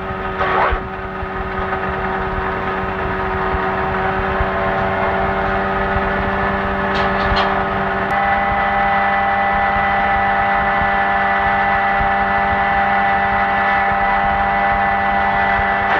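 Citroën helicopter's engine and rotor running steadily in flight, a continuous drone made of several steady tones. About eight seconds in the pitch pattern shifts, one lower tone dropping out and higher tones coming in, as the power setting changes.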